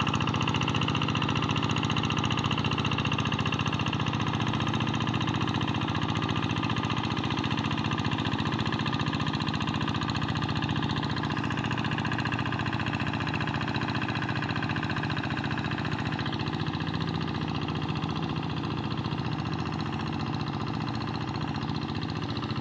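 Tractor engine running steadily under load while ploughing a rice paddy, growing slightly quieter toward the end.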